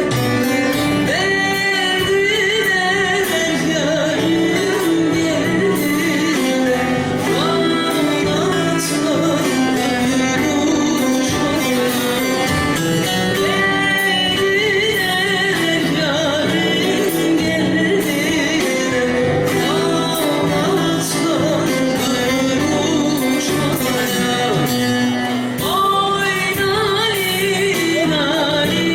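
A female singer performing a Turkish folk song (türkü), her voice wavering and ornamented over steady instrumental accompaniment.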